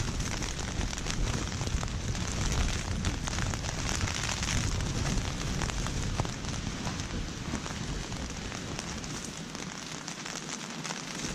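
Heavy rain pattering on a tent's fabric, a dense, steady patter of countless small drop hits, with a low wind rumble underneath that eases briefly near the end.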